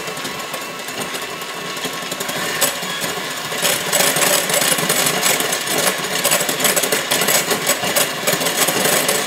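KitchenAid electric hand mixer running steadily, its beaters whipping egg whites into a loose froth in a glass bowl, with a fast clatter of the beaters against the glass.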